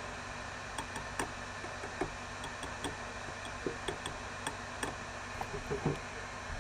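A string of irregular light clicks and taps, about three a second with uneven gaps, over a steady background hiss and hum.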